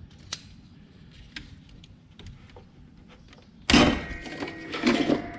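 A few light clicks and taps, then a loud clunk with a short scrape and rattle about two-thirds through, and another knock near the end: a car-type lead-acid battery being handled and set into the lawn tractor's battery tray.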